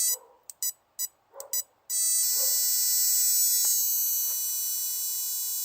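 Spark plug tester buzzing as it fires a sooted plug. The buzz stutters and cuts out in short bursts for the first couple of seconds, then runs steadily again; the plug's spark is breaking up and needs a clean.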